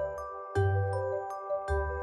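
Background music: a run of short, ringing, bell-like struck notes over a low bass line.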